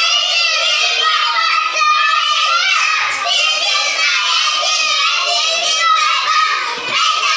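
A small group of young children singing a nursery rhyme together, their voices loud and unbroken.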